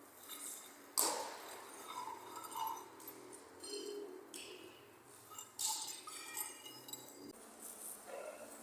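Scattered sharp clinks and taps of hard objects struck on the hard surfaces of an empty building, each ringing briefly. The loudest strike comes about a second in, with others around the middle.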